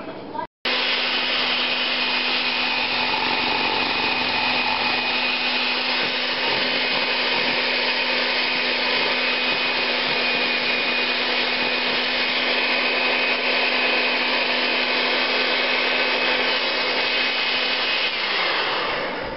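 Handheld electric mixer running at a steady speed, its beaters whisking xanthan gum into distilled water. Near the end it is switched off and the motor's whine drops in pitch as it spins down.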